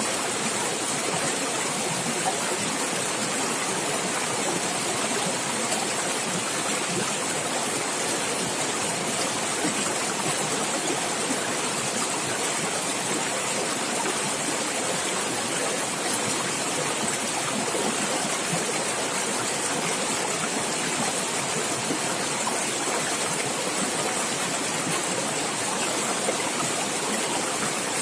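Stream water running and gurgling over rocks, a steady even rush.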